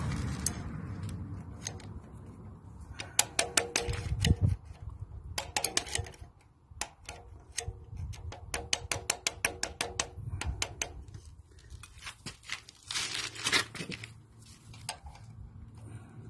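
Bursts of sharp metallic clicks and taps from hand tools at work on a Lister SR3 diesel's fuel-pump control linkage as it is adjusted, including a run of evenly spaced clicks in the middle.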